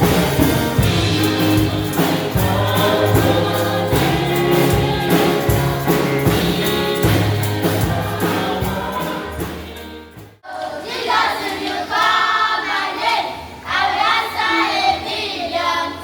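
Church choir singing gospel music with a band and a strong bass line. About ten seconds in it cuts off abruptly, and singing voices carry on without the band.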